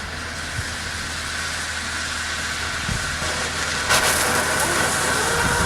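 A firework burning with a steady hiss, which jumps suddenly louder with a sharp crack about four seconds in as it flares up.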